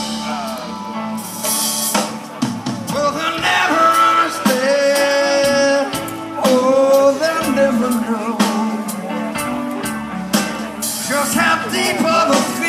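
Live blues-rock band playing: drums and bass under a lead line of long, held notes that bend and waver in pitch.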